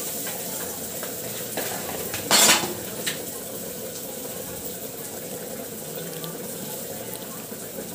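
Oil sizzling steadily in a kadai with dried red chillies and spices frying in it. A brief utensil clatter against the pan comes about two and a half seconds in, followed by a single small knock.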